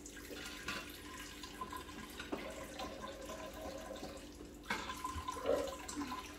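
Kitchen tap running into a stainless-steel sink while a child rinses dishes under it, with a couple of light knocks, the sharpest about three-quarters of the way through.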